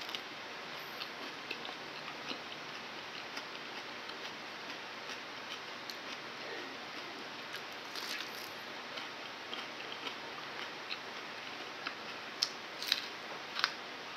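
Close-up chewing of unripe banana eaten with its peel: irregular small crunches, a fresh bite about eight seconds in, and a few sharper, louder crunches near the end, over a steady faint hiss.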